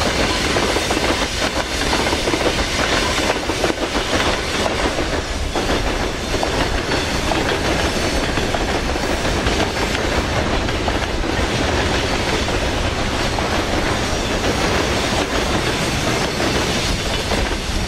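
Freight train's boxcars and tank cars rolling past, a steady rumble and rattle of steel wheels on the rails.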